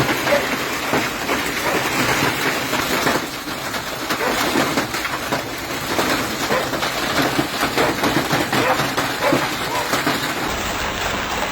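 Heavy storm rain pouring down: a steady rushing hiss with a dense clatter of separate hits on hard surfaces.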